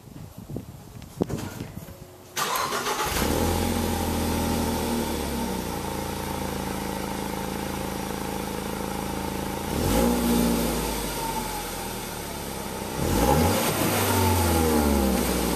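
2014 Ford Focus SE four-cylinder engine heard at the tailpipe through its stock exhaust. It starts about two seconds in after a few faint clicks, and its idle flare settles. It is then revved up and let fall twice, about ten seconds in and again near the end.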